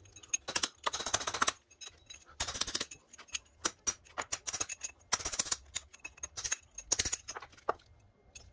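Irregular light metallic taps and clinks of steel on steel, some coming in quick little clusters, as a hammer and cold chisel work the cracked wheel-bearing inner race ring loose and the steel parts are handled.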